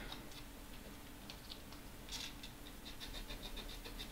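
Sandpaper scrubbing corrosion off the pads of a circuit board, faint. From about two seconds in come quick scratching strokes, several a second.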